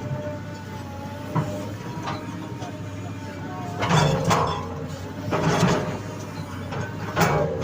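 Excavator's diesel engine running steadily under load, with three loud, harsh bursts of mechanical noise, about a second and a half apart, as the machine works the soil.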